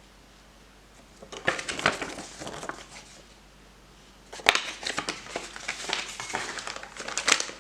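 Paper and plastic packaging crinkling as unboxed items are handled, in two spells: a short one a little over a second in and a longer, louder one starting near the middle.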